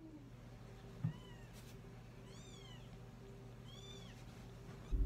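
Neonatal kitten mewing: three short, faint, high-pitched mews spread over a few seconds. A single soft knock comes about a second in.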